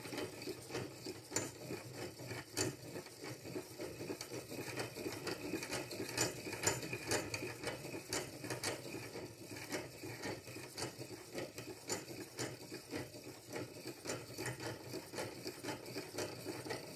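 Piston ring filer grinding the end of a Kohler Magnum M18 exhaust valve stem: a steady grinding with many small clicks from the cranked mechanism, taking metal off the stem to increase the valve-to-lifter clearance.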